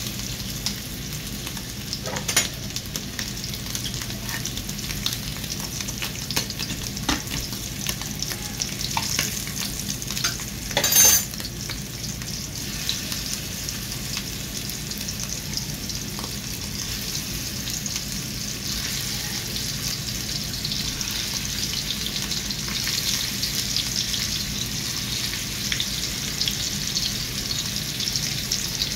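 Oil sizzling and crackling in a frying pan as raw kofta meatballs are laid in beside frying meat pieces. The sizzle grows a little louder in the second half as more meatballs go in, and there is a brief loud noise about eleven seconds in.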